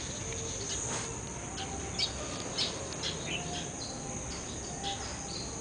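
Steady high-pitched insect trill, with short bird chirps scattered through it.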